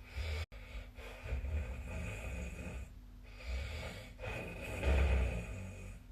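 A sleeping person snoring, recorded on a phone's microphone by the SnoreLab app: a run of snoring breaths, the loudest about five seconds in.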